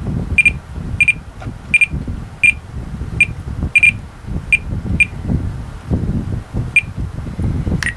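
Spektrum DX6 radio transmitter beeping as its scroll wheel is rolled and clicked to step through characters: about a dozen short, high beeps at uneven intervals, some in quick pairs, over a low rumble.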